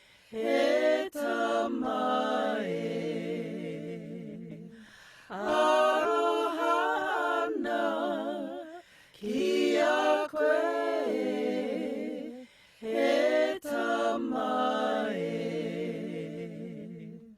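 Unaccompanied singing voice in four long sung phrases with a wavering pitch, separated by brief pauses; the last phrase cuts off abruptly.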